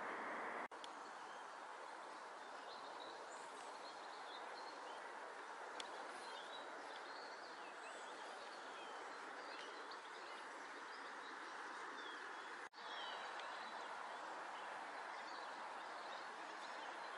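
Quiet outdoor background hum with small birds chirping and twittering here and there, broken twice by brief dropouts in the sound, about a second in and again about three quarters of the way through.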